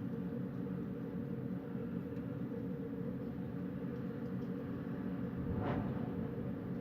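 Wind blowing steadily with a low rushing noise, swelling briefly in a stronger gust near the end.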